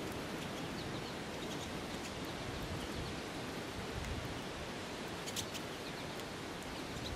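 Pine siskins giving scattered faint, short high calls over a steady outdoor background hiss, with one brief sharp high click about five and a half seconds in.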